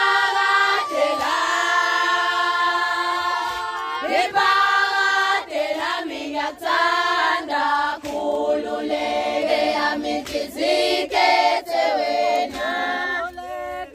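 A group of women singing a traditional Zulu song together, unaccompanied, in long held notes, with a few sharp knocks scattered through it.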